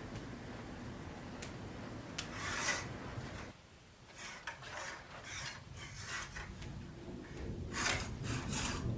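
Several short bursts of scraping and rubbing, like something being slid or rubbed against a hard surface, coming in irregular spurts over a soft low background rumble.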